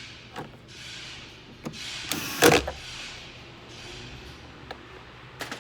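Plastic door trim being handled and fastened back on a car door: rustling, a few sharp clicks, and one loud knock about halfway through.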